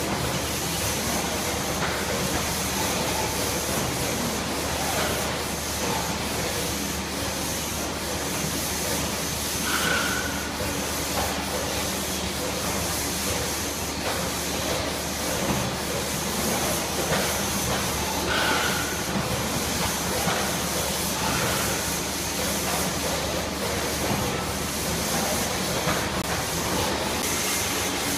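Steady running noise of a pouch packing line, with delta robots and their suction-cup picking heads working over belt conveyors, under a constant hiss. Two short, higher beeps or chirps come about ten seconds and about eighteen seconds in.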